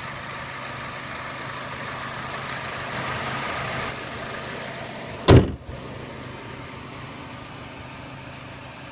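A 2014 Chevrolet Sonic's turbocharged four-cylinder engine idling steadily. About five seconds in a hood slams shut with one loud bang, and the idle goes on, muffled and duller.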